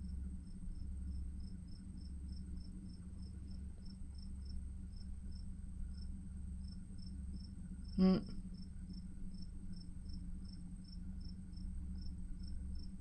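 Faint, regular high-pitched chirps, about three a second, over a steady low hum, with one short knock about eight seconds in.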